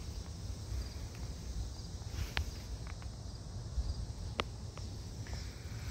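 Outdoor ambience: a low, uneven rumble with a faint high trilling of insects. Two sharp clicks come through, about two and a half seconds in and again near four and a half seconds.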